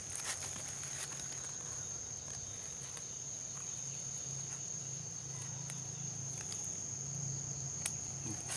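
Steady, unbroken high-pitched insect chirring, cricket-like, with a few faint clicks scattered through it.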